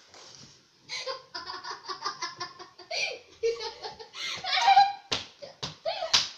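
Hearty laughter in rapid ha-ha bursts, followed near the end by three sharp smacks as the prankster is hit.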